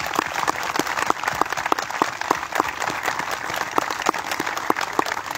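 A crowd applauding, with one person's claps close by standing out at a steady rate of about three a second.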